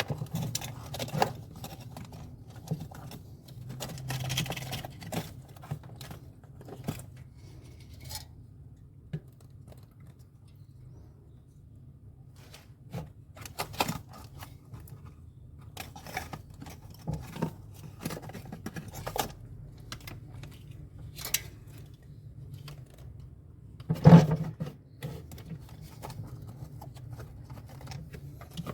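Scattered clicks, knocks and scrapes of hand work on refrigerator parts, with one louder knock near the end, over a steady low hum.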